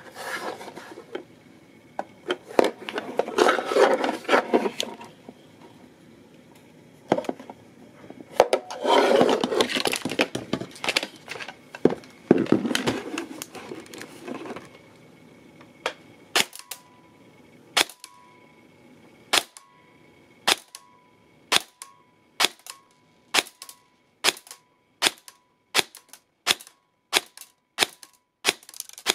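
Tokyo Marui G3 SAS airsoft electric gun with 18:1 gears, a double sector gear and its stock air nozzle, firing single shots into a chronograph. Each shot is a sharp crack, at first about a second and a half apart, then quickening to about one and a half a second. Before the shooting come several seconds of irregular clattering handling noise.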